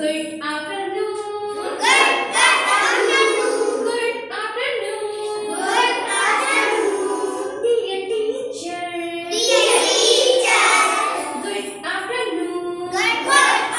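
A group of young children singing an action rhyme together, in short phrases with brief breaks between them.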